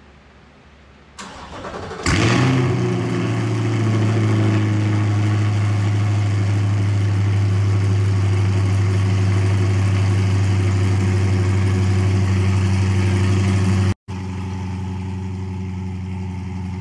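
A 2021 C8 Corvette's 6.2-litre V8, with headers, the catalytic converters deleted and a full stainless exhaust with only small mufflers, cranks about a second in and fires about two seconds in, then runs loud and steady at its cold-start high idle. Near the end the sound drops suddenly and carries on quieter.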